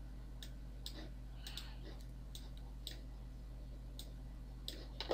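Computer mouse clicking a few times at an irregular pace, faint, over a steady low electrical hum.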